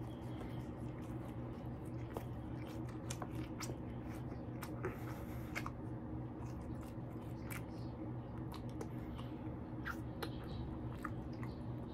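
Close-up chewing of a toasted ham-and-egg sandwich, with many short wet mouth clicks and smacks, over a steady low hum.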